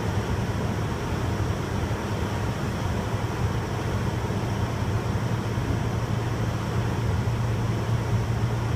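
Steady airliner cabin noise in cruise: an even, low rushing hum of engines and airflow that does not change.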